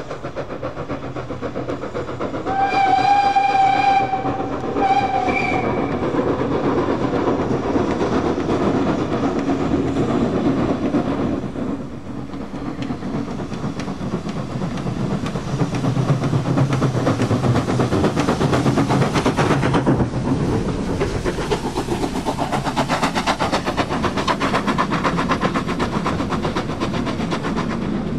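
Danish class F 0-6-0T steam tank locomotive No. 656 sounds its steam whistle twice about three seconds in, a long blast and then a shorter one. After that the engine working hard and its train running on the rails grow louder as it draws close. From about twenty seconds the coaches rattle past close by over the rail joints.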